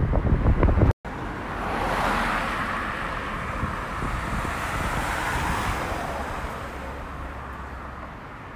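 Wind buffeting the microphone until it cuts off abruptly about a second in; then a car passes on the road alongside, its tyre and road noise swelling and slowly fading away.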